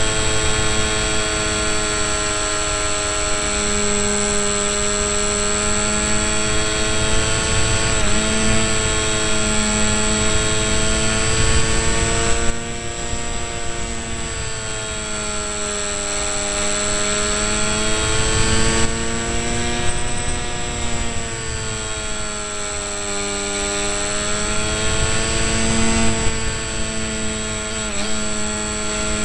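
Electric motor and propeller of a radio-controlled delta-wing model whining steadily, heard close up from the model's on-board camera, the pitch drifting slowly up and down with the throttle, over a low rush of wind.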